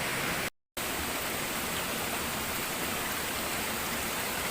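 Steady, even rushing hiss, broken by a brief dead-silent gap about half a second in.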